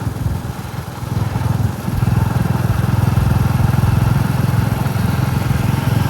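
Royal Enfield Classic 350's single-cylinder engine thumping along under way. It eases off for about a second and a half near the start, then pulls steadily again.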